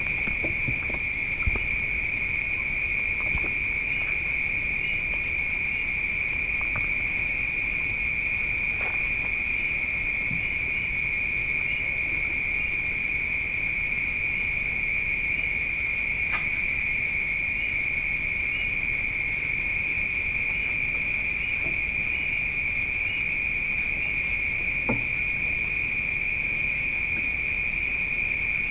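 Chorus of night insects trilling steadily, a continuous high-pitched ringing in two layers, the upper one faintly pulsing. A few faint clicks come through underneath.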